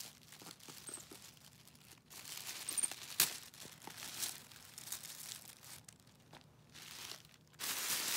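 White tissue paper packing crinkling and tearing in uneven bursts as a capuchin monkey rummages through it, with a sharp crack about three seconds in and the loudest crinkling near the end.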